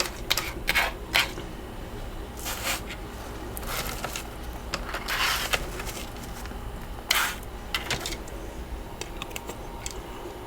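Freezer frost being scraped: a series of irregular, scratchy strokes, most short and one longer about five seconds in, with a few faint small ticks near the end.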